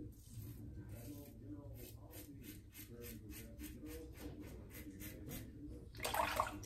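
Safety razor (Karve CB with C plate) scraping through stubble on the neck in short quick strokes, about four a second. A brief, louder rush of noise comes about six seconds in.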